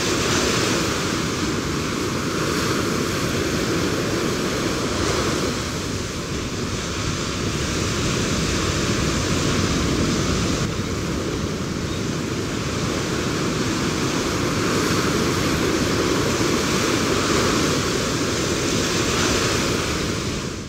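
Sea surf breaking on the shore: a steady wash of waves, fading out at the very end.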